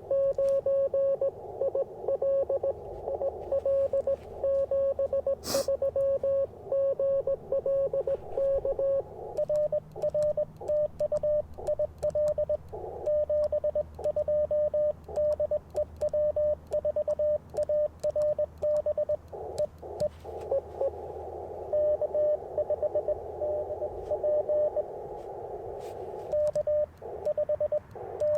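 Morse code (CW) from an Icom IC-705 transceiver on the 30-metre band: a single mid-pitched tone keyed in quick dots and dashes over a narrow band of receiver hiss. Short sharp clicks sound throughout, with one louder click about five and a half seconds in.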